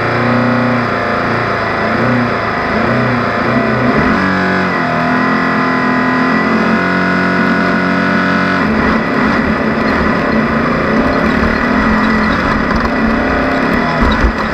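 Off-road race car engine running hard under load. Its pitch wavers up and down in the first few seconds, changes about four seconds in, holds steady, then turns rougher and noisier about nine seconds in.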